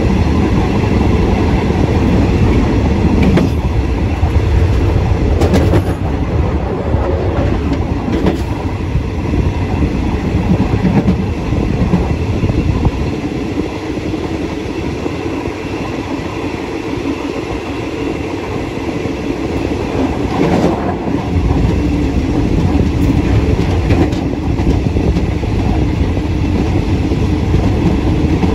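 Passenger train running along the track, heard from the rear of the last carriage: a steady rumble of wheels on rail with occasional clacks over rail joints. The low rumble eases for several seconds in the middle, then returns.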